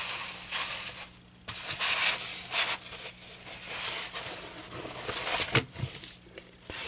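Fabric rustling and rubbing as it is spread and shifted over a styrofoam board, in uneven strokes with a brief pause a little over a second in.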